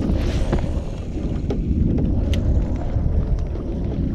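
Strong wind buffeting the kayak-mounted camera's microphone, a steady low rumble, with a few short sharp clicks.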